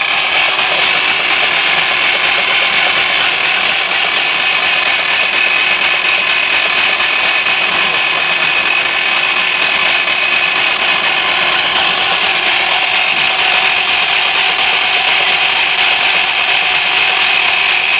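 Electric-motor-driven toka (fodder chaff cutter) with a large flywheel running steadily while green fodder is fed into its blades, with a steady high whine over the machine noise.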